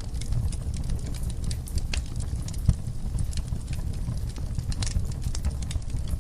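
Wood fire crackling in a fireplace: a steady low rumble of flames with scattered sharp pops and snaps, one louder pop a little under three seconds in.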